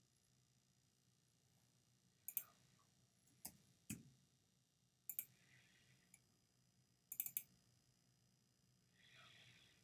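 Computer mouse clicking about five times, some clicks in quick doubles and triples, over faint room tone.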